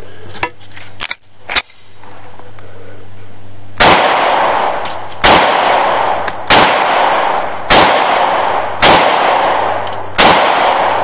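Six pistol shots from a Springfield XD45 (.45 ACP) fired at a steady pace, about one every second and a quarter, starting about four seconds in; a few small clicks come before the first shot.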